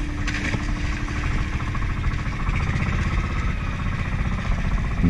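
Small boat engine running steadily, with a fast, even pulse of firing strokes.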